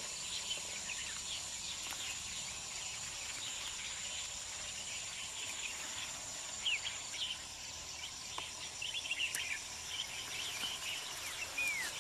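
Outdoor countryside ambience: a steady high-pitched insect drone, with short bird chirps scattered through it, clustering in the second half.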